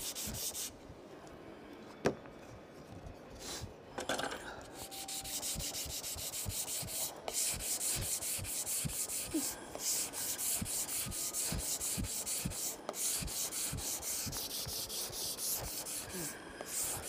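Sandpaper on a wooden block rubbed rapidly back and forth over a row of thin hinoki kumiko strips held in a jig, widening the cut. After a quieter start with a single knock about two seconds in, the even sanding strokes set in about four seconds in.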